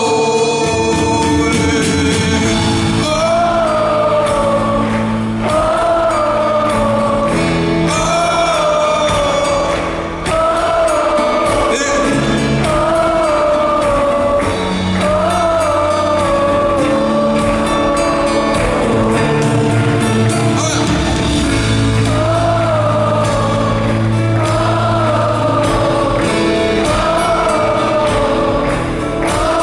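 Large arena crowd singing together, many voices repeating one short melodic phrase every two to three seconds.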